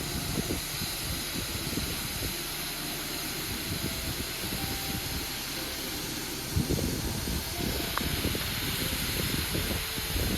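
Waterfall water rushing in a steady, even roar, with wind buffeting the microphone in irregular low rumbles.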